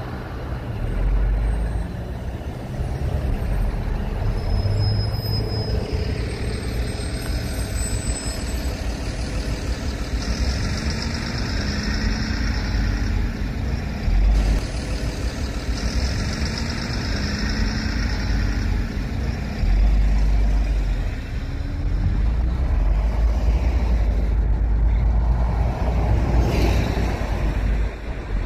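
Motor vehicle noise: a steady low rumble of engine and road with swells in loudness, and a few faint whines over it.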